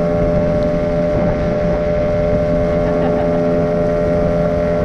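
Small outboard motor pushing an inflatable dinghy, running at a steady speed without change in pitch, with wind rumbling on the microphone.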